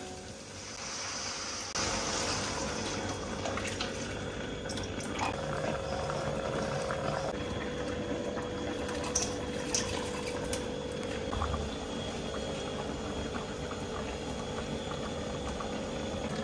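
Coconut milk pouring into a hot wok, then the sauce simmering with a steady bubbling hiss. About halfway through, a few soft splashes and taps as raw prawns are tipped in from a glass bowl.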